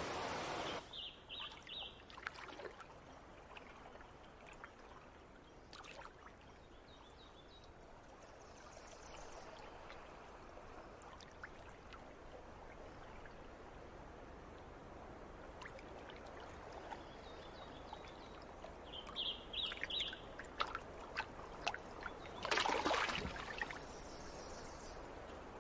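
River rapids rushing for the first second, then cut off; after that, quiet trickling and lapping water from a canoe paddle dipping in calm water, with short bird chirps twice. A louder splash of water near the end.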